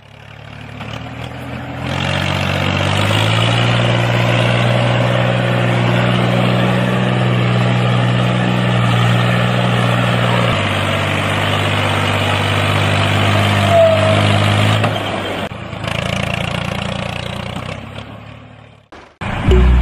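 An engine or motor running steadily. Its pitch steps up about three seconds in and drops about ten seconds in, and it stops shortly before the end.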